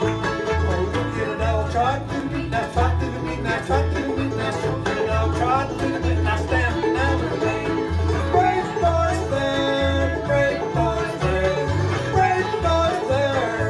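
Old-time string band playing live: fiddle, guitar, mandolin, banjo and bass fiddle together, with the plucked bass fiddle keeping a steady beat of about two notes a second.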